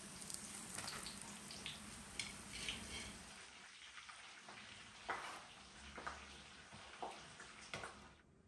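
Hot oil sizzling in a wok as breaded chicken drumsticks deep-fry and are lifted out with a wire strainer, with several sharp metal taps in the second half, about one a second. The sizzle drops away near the end.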